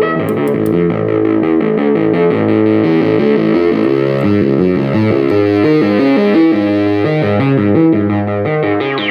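Sequential Circuits Pro-One analog monophonic synthesizer playing a fast run of single notes in a bright, buzzy tone.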